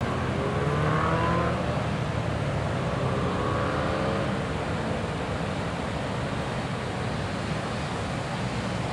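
Distant road vehicle engines accelerating up the mountain hairpins, rising in pitch twice in the first half, over a steady rushing background.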